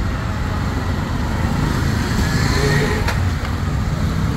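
Street traffic noise: a steady low rumble of passing engines, with a single click about three seconds in.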